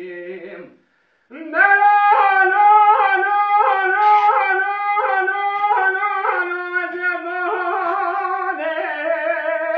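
A man singing dengbêj, unaccompanied Kurdish bardic song: after a short pause he launches about a second in into a long, held vocal line, ornamented with rapid trills and wavering pitch.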